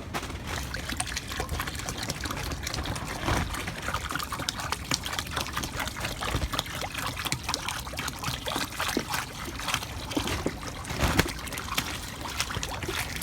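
Water pouring and splashing into a container, a continuous irregular trickle filling it until it overflows. Wind rumbles on the microphone underneath.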